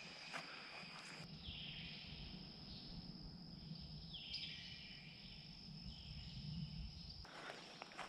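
Insects buzzing in woodland: a steady high drone throughout, with two longer swelling calls in the middle. A faint low rumble starts about a second in and stops shortly before the end.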